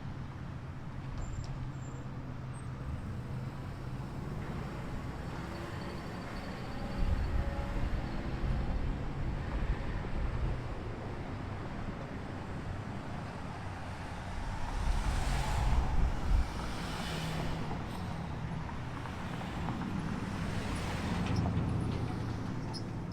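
Motor vehicle engines running: a steady low rumble that grows louder twice, about a third of the way in and again past the middle.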